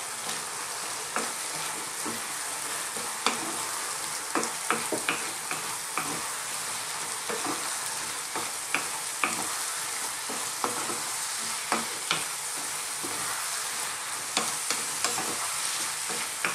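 Diced potatoes, onion and tomatoes sizzling in a nonstick frying pan as a wooden spatula stirs the ground spices through them, scraping and knocking against the pan at irregular intervals over a steady sizzle.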